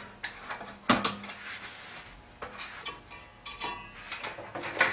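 Light clicks and knocks of hands handling metal parts and wiring inside a kerosene torpedo heater's sheet-metal housing, with one sharper click about a second in.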